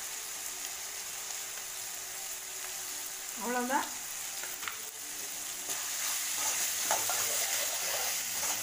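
Chopped onions and tomatoes frying in oil in an aluminium kadai: a steady sizzle that grows louder about halfway through. Near the end a metal ladle stirs and scrapes the pan.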